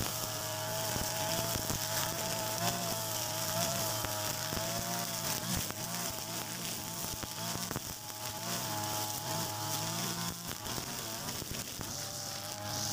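Mitsubishi brush cutter with a nylon string head running at high revs while cutting grass. Its engine whine wavers up and down in pitch as the load changes, with a hiss from the spinning line over it.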